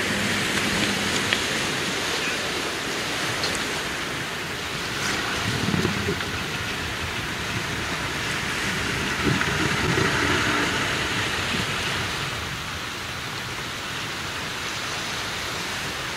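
Small waves washing steadily onto a stony shingle beach, an even hiss that swells a little about five seconds in and again around ten seconds.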